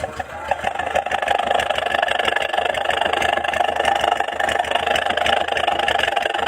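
Petrol engine running at a steady idle through an aftermarket SUOS exhaust muffler: a loud, fast, even pulsing with the snoring rasp ('ngorok') the exhaust is fitted for. It builds up in the first half second, then holds steady.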